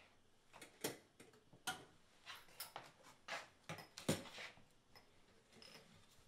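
A string of quiet, irregular clinks and taps: small glass tea cups and a metal kettle being handled and set down on a tray.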